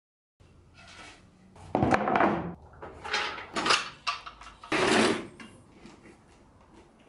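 Wood being handled on a table saw: a board and saw fittings slid and set down on the table, a few scrapes and knocks between about two and five seconds in. The saw is not running.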